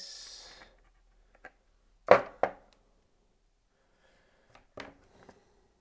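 Two sharp knocks about two seconds in, then a few faint taps and ticks: a hard mask shell and lens frame being handled and set against each other on a desk.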